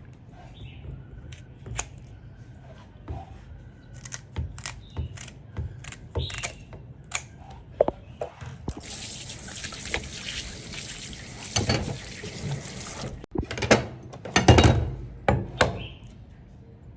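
Scattered clicks and knocks of handling in a kitchen. About nine seconds in, water runs steadily from a tap for about four seconds and cuts off suddenly, followed by a loud cluster of knocks and splashes.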